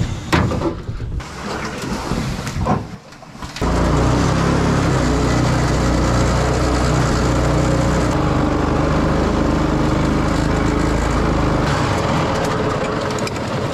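Small 212cc 6.5 hp single-cylinder petrol engine driving a surface-drive propeller, running steadily under load as it pushes a small aluminium boat up a shallow creek. It comes in abruptly about three and a half seconds in, after some irregular knocking and handling noise.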